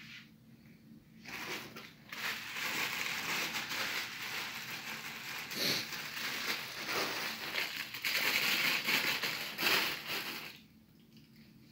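Crinkly wrapping being handled and rustled close to the microphone, with a few sharper crackles; it starts about a second in and stops about a second before the end.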